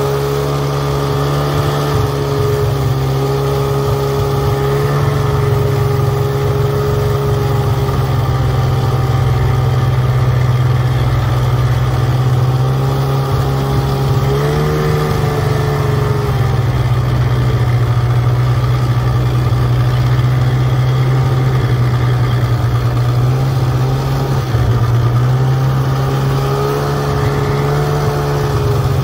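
Snowmobile engine running steadily at low speed while towing snow tubes. Its pitch rises briefly about halfway through and again near the end.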